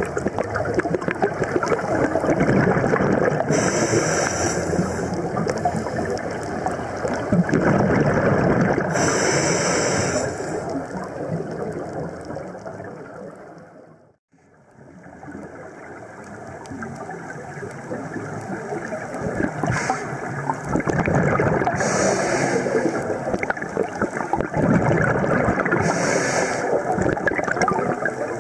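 Scuba diver breathing through a regulator underwater: long bubbling, gurgling exhalations alternate with short hissing inhalations several times. The sound fades out briefly near the middle and comes back.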